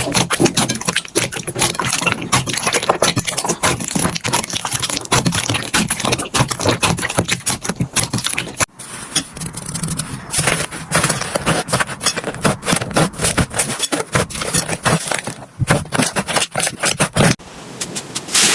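Slime being squeezed, pressed and stretched by hand, giving a dense run of crackling and clicking pops. The sound breaks off for a moment about halfway through and then starts again.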